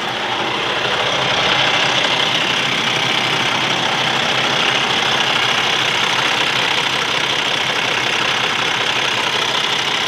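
Cummins ISX15 inline-six diesel engine idling steadily, heard close up at the open engine bay. The engine carries an intermittent internal high-pressure fuel leak code (SPN 1239 FMI 16), but at this idle its measured fuel rail pressure reads normal.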